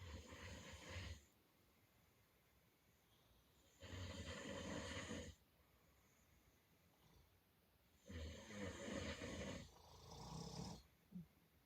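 Snoring: slow, regular snores about every four seconds, the last one in two parts, with near quiet between them.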